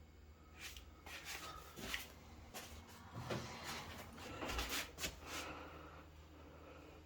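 Gree Amber Prestige 5.3 kW heat pump running with a steady low hum, overlaid from about half a second in until past five seconds by a string of short rustles and knocks.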